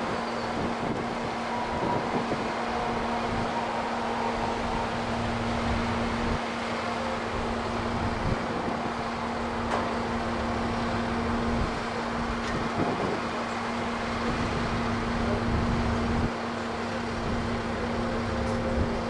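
An engine running steadily with a constant hum and a low rumble, with a few faint clicks over it.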